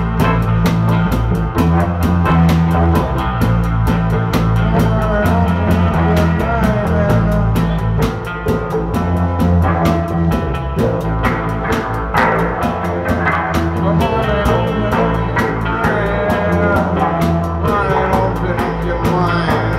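Live reggae band playing with a steady beat: electric guitar, bass, keyboard and drum kit.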